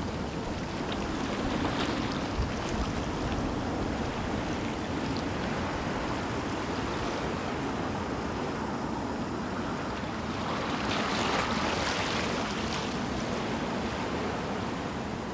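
Gentle sea waves washing on the shore, with a steady low rumble of wind on the microphone. A louder wash swells up about two seconds in, and again, longer, around eleven seconds in.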